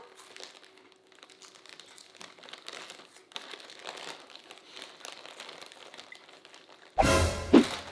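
Crinkling of a plastic potato chip bag being handled. About seven seconds in, a sudden loud burst with a deep rumble and a pitched tone.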